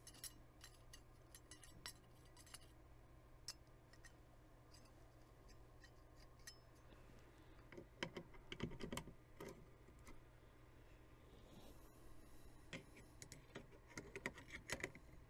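Faint clicks and light metallic taps of steel rifle parts being handled: the bolt of a Marlin lever-action slid into the receiver, with a cluster of clicks about eight seconds in, then the finger lever fitted against the bolt, with more clicks near the end.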